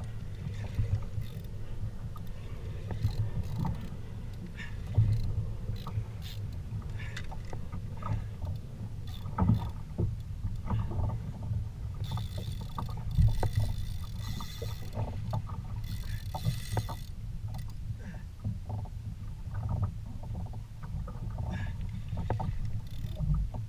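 Steady low rumble of wind and water around a kayak at sea, with scattered knocks and clicks. A few seconds of hiss come in around the middle.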